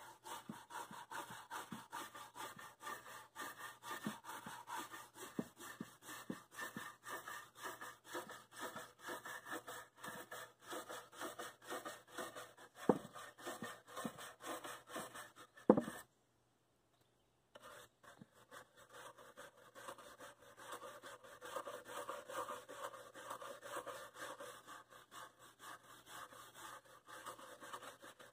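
Wire brush scrubbing the charred surface of a burnt oak chair seat in quick back-and-forth strokes, scraping off the loose char to bring out the grain. Two sharp knocks stand out about halfway through, and the sound cuts out briefly just after the second.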